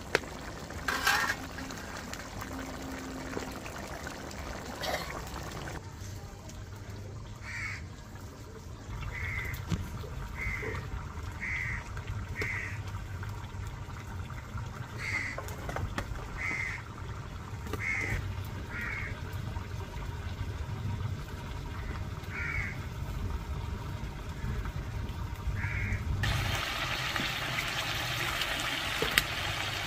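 A crow cawing again and again: about a dozen short calls roughly a second apart, over a low steady rumble. Near the end a steady hiss comes in.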